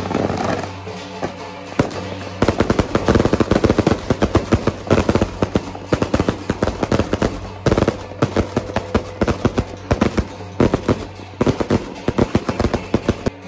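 A long string of firecrackers going off in rapid, dense cracks, starting about two seconds in and running until shortly before the end, over steady held tones of festival music.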